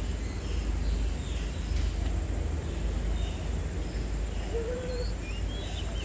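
Small birds giving a few faint, short high chirps toward the end, with a short held note just before them, over a steady low rumble of outdoor background noise.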